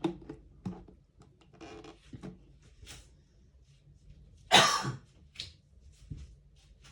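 Cardboard camera box and packaging being opened and handled: scattered rustles and scrapes, with one louder rustle about four and a half seconds in.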